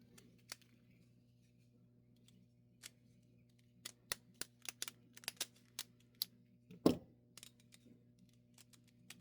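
Small metallic clicks and ticks of a 4-pin comb pick being worked into a lock: a few isolated clicks, then a quick irregular run of sharp ticks, and one louder clack about seven seconds in.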